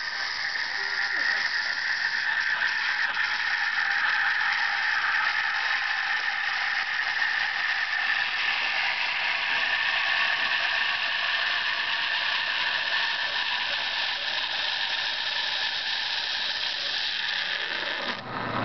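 Espresso machine steam wand frothing milk in a jug: a steady hiss with a wavering whistle-like tone running through it, which cuts off suddenly near the end.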